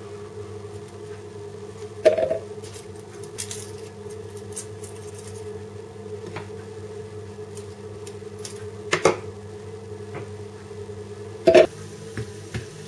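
Garlic cloves being peeled with a small knife on a wooden cutting board: a few sharp knocks and taps of knife and cloves on the board, the clearest about two, nine and eleven and a half seconds in, over a steady low hum.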